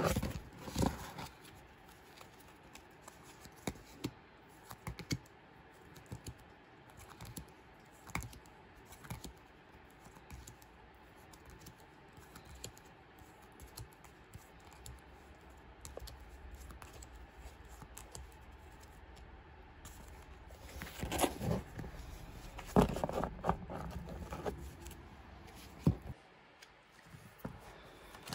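Plastic-sleeved photocards being handled and shuffled: scattered light clicks, taps and rustles, with a burst of louder handling about three-quarters of the way through.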